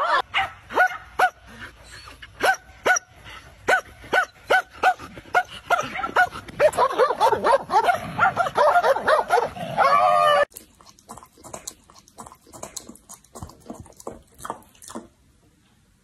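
Small dog barking and yipping in short, high-pitched yaps, about two a second for roughly ten seconds, then cutting off abruptly; faint clicks follow.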